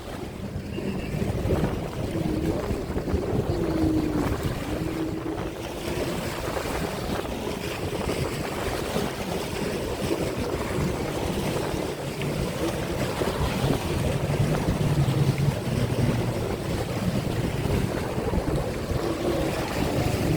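Racing jet skis running out on the water, their engine note wavering as they throttle, with wind buffeting the microphone.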